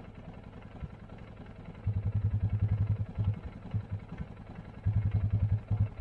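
John Deere tractor's diesel engine running, a steady low rumble that swells into loud, rapid low pulsing about two seconds in, drops back after about a second, and comes up again near the end.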